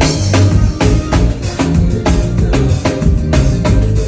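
A live forró band playing, with the drum kit to the fore: kick drum, snare and cymbal strokes in a quick, busy pattern over a steady bass line.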